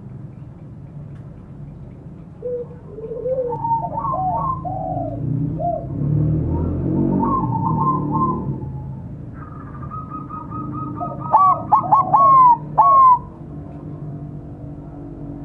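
Zebra dove (perkutut) calling: runs of soft rolling coo notes, then a burst of several louder, clear notes near the end.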